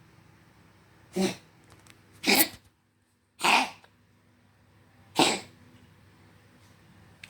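A domestic cat coughing: four short, harsh coughs spaced about a second apart.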